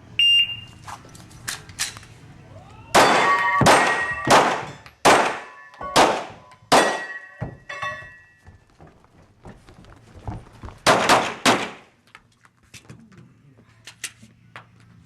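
A shot timer's start beep, then pistol shots fired in quick succession from about 3 s in, with steel targets ringing after hits; after a pause, three rapid shots near 11 s.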